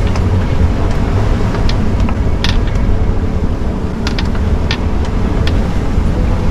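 Strong wind buffeting the microphone in a steady low rumble, with the sea rushing past the hull of a heeled sailing yacht in gusts of around 30 knots. Scattered short ticks and knocks sound through it.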